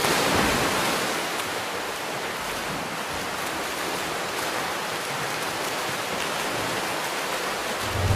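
A steady rushing noise with no distinct tones, a little louder in the first second.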